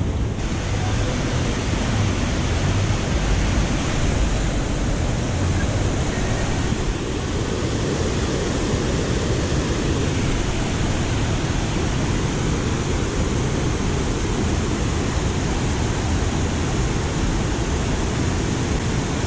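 Water of a river waterfall and rapids rushing steadily.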